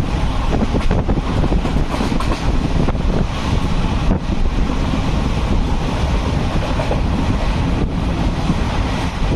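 Passenger train running along the track, heard from on board as a steady loud noise, with wind buffeting the microphone.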